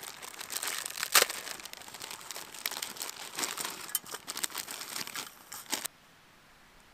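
Plastic instant-noodle packet crinkling as the dry noodle block inside is squeezed and crushed by hand, with one sharp crack about a second in. The crinkling stops abruptly near the end.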